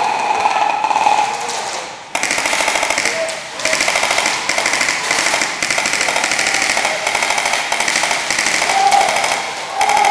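Airsoft guns firing on full auto: a rapid, even clatter of shots that starts abruptly about two seconds in and carries on in long bursts.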